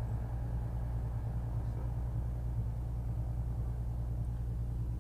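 BMW's engine idling in park, heard from inside the cabin as a steady low rumble.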